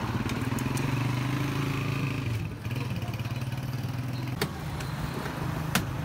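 A motor vehicle engine running steadily at a low, even pitch, dipping briefly about two and a half seconds in, with two sharp clicks near the end.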